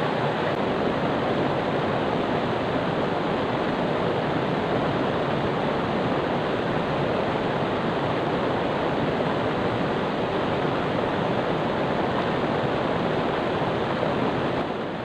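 Steady rush of river water flowing close by, an even noise without breaks.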